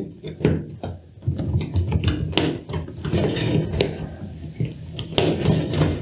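Rubber door seal of a Siemens front-loading washing machine being pulled and pressed by hand into the rim of the front panel: irregular rubbing and handling noise with a few sharp knocks and clicks against the machine's front.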